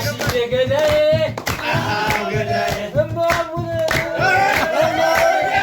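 A group of people singing an Amharic song together, with sustained, wavering sung notes over a steady rhythm of hand clapping.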